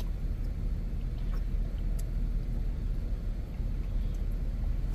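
Low, steady rumble of a heavy-duty 2500 truck's engine idling, heard from inside the cab while the truck waits in traffic, with a couple of faint clicks.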